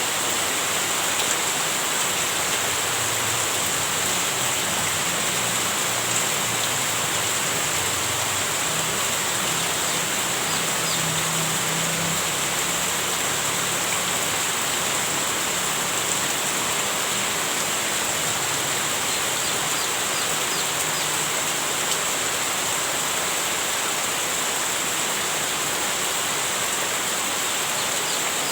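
Heavy rain falling steadily as a dense, even hiss.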